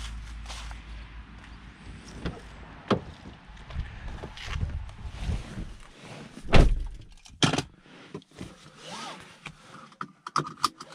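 A car door shutting with a heavy thud about six and a half seconds in, after a few knocks and rustles of getting into the driver's seat of an Opel Corsa-e. After the thud the outside rumble drops away, and a few light clicks sound near the end.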